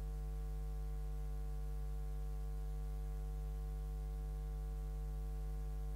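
Steady electrical mains hum with a buzzing row of evenly spaced overtones, picked up in the microphone and sound-system feed.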